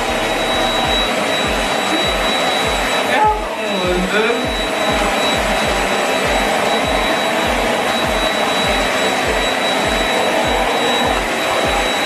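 Perysmith Xtreme X10 corded stick vacuum cleaner running steadily, a dense motor rush with a high, steady whine, while its floor brush sucks scattered debris off a tile floor. The sound wavers briefly about three seconds in.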